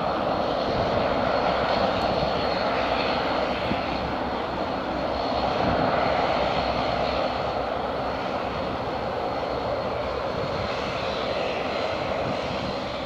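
Emirates Boeing 777's twin jet engines at takeoff thrust as the airliner lifts off and climbs out: a loud, steady rumble that swells about a second in and again around six seconds, then eases a little as the jet draws away.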